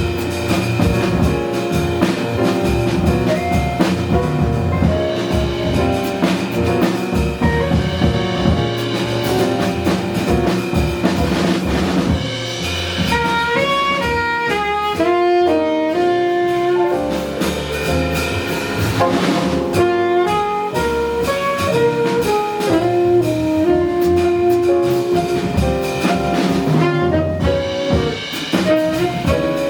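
Live jazz combo playing: a saxophone carries the melody over drum kit and rhythm section, with a quick run of fast notes about halfway through.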